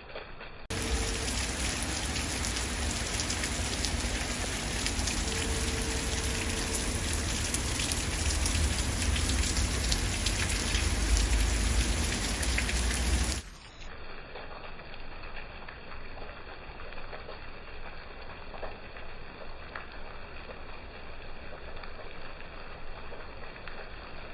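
Rain falling: a loud, dense crackle of drops with a low rumble underneath. It cuts off abruptly about 13 seconds in, giving way to a quieter, thinner rain sound.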